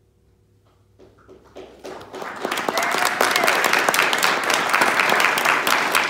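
The last held chord of a digital piano fades out, then audience applause starts about a second in, swells quickly and holds steady.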